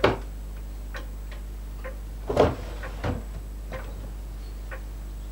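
A clock ticking steadily, about two ticks a second, over a low steady hum, with a loud thud right at the start, another about two and a half seconds in and a softer one just after.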